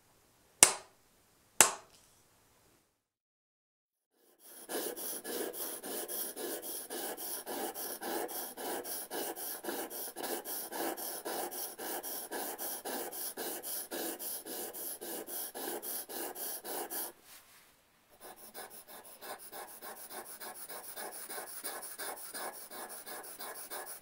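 Two sharp knocks near the start, then a narrow socket chisel being honed by hand on a 2000-grit waterstone: quick, even back-and-forth strokes of steel scraping on the stone. After a short pause about 17 seconds in, the strokes go on, quieter, on a second, white stone.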